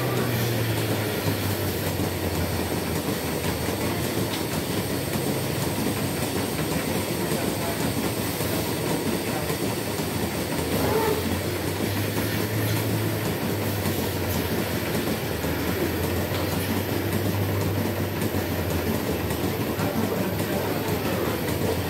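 Milking shed machinery running steadily: a continuous mechanical rumble and clatter over a low hum.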